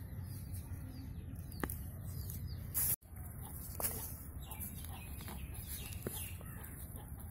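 Digging by hand in a mound of earth: a few short knocks and scrapes of a small hoe and hands working the soil, over a steady low background rumble, with birds calling.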